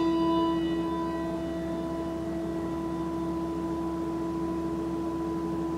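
A bell ringing on after a single strike, holding one clear steady tone while its higher overtones die away within the first couple of seconds. It is the memorial bell rung once after each name of the dead is read.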